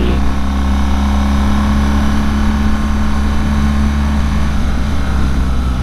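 BMW R1200GS Adventure's boxer twin engine running steadily in second gear at low road speed, over a steady rush of noise.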